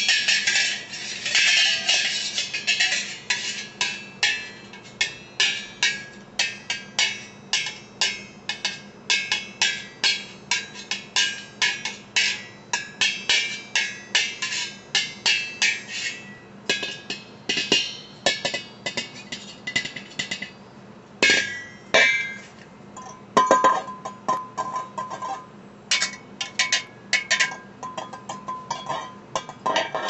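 Wire whisk struck and scraped against a metal pot lid as improvised percussion: a fast, even run of metallic clinks at about three a second, thinning after about the halfway point into scattered, louder hits, with the lid ringing out in the last third.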